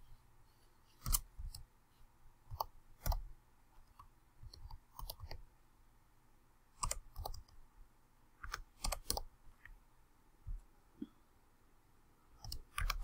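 Computer keyboard typing: scattered key clicks in short irregular runs with pauses between them.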